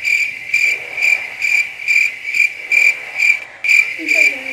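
Cricket chirping: one high chirp repeating evenly, about twice a second.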